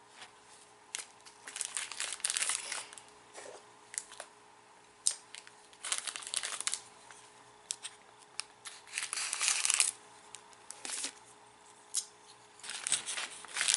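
Clear plastic wrapper of a waffle cookie being torn open and crinkled by hand, in several irregular bursts of crackling with sharp clicks between them.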